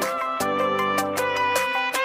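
Instrumental outro music with a melody over a steady beat.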